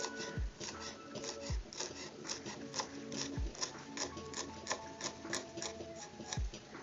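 Kitchen knife chopping green onions on a plastic cutting board: quick, uneven taps about three a second, over background music.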